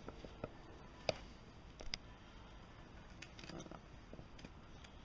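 A few faint, scattered clicks and light taps over a low steady hiss.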